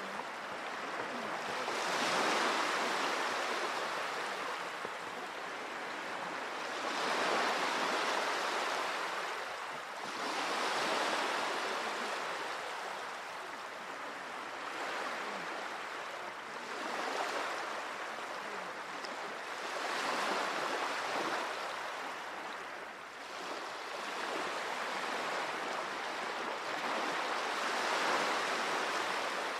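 Small sea waves washing onto the shore, each wash swelling and falling away about every three to five seconds.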